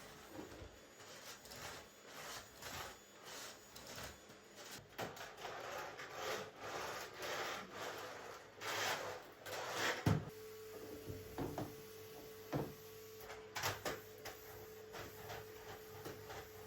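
Household handling sounds: things rubbing, scraping and knocking, like drawers or cupboards and objects being moved about. A sharp knock comes about ten seconds in, and a steady hum runs from then on.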